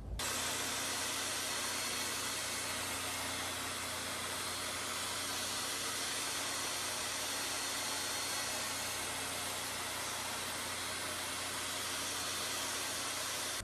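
Table saw running steadily while a pine board is pushed along the fence, cutting a narrow groove for a 1/4-inch plywood panel.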